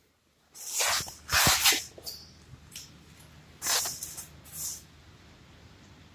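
Short hissing bursts from an aerosol spray can, four of them a second or so apart, with a light knock among them.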